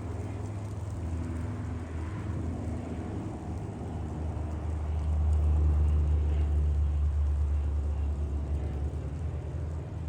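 Amtrak passenger train going by, its P42DC diesel locomotive's engine giving a low rumble that swells to its loudest about halfway through, then eases slightly.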